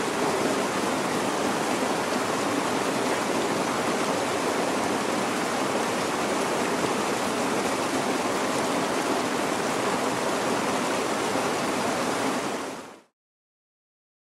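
Steady rush of flowing water, even and unbroken, fading out quickly near the end into silence.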